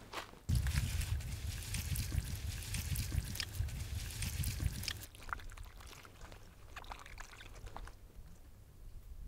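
Water poured from a metal cup splashes over a bunch of wild greens on a rock as a hand rubs them clean. The pour starts suddenly about half a second in and stops about five seconds in, followed by softer, scattered drips and splashes.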